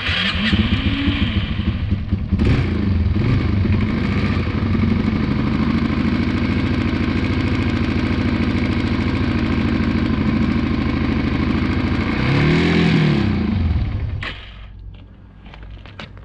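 2002 Yamaha 225 motorcycle's single-cylinder four-stroke engine catching and running. It is revved up and down a few times, most strongly about 12 seconds in, then dies about 14 seconds in.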